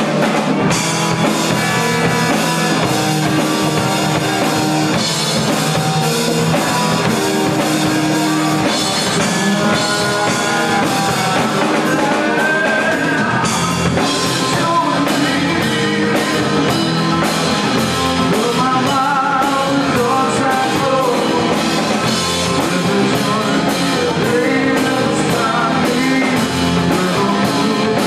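Live rock band playing a song: a lead singer's vocal over electric guitar, electric bass and drum kit.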